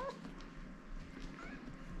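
Domestic cats begging before feeding: the end of a loud meow right at the start, then a lull with faint soft taps and a faint short cry about one and a half seconds in.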